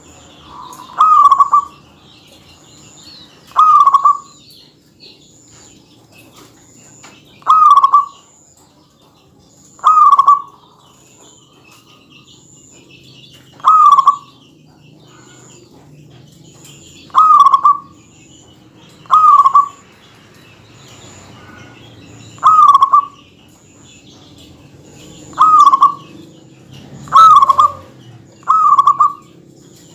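Perkutut (zebra dove) giving its short cooing calls, each under a second long, about a dozen times at intervals of two to four seconds, coming closer together near the end. A faint high chirp repeats evenly behind it.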